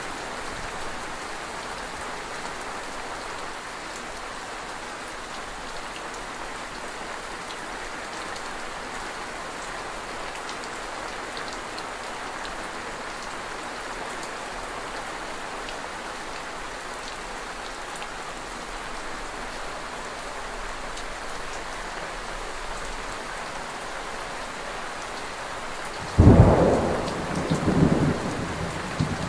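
Steady rain falling, then a sudden loud thunderclap near the end that rumbles on with several further peaks.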